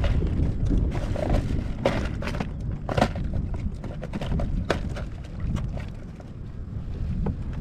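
A run of sharp, irregular clicks and snips as zip ties on a fishing rod are cut and handled, the loudest about three seconds in, over a steady low rumble of wind on the microphone.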